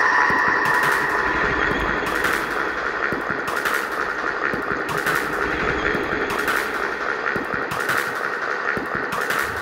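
Mountain bike rolling over a rough gravel forest track, heard from a bike-mounted camera: a steady dense rattle and crunch of tyres and mount over the loose surface, with a sharper knock about every second and a half.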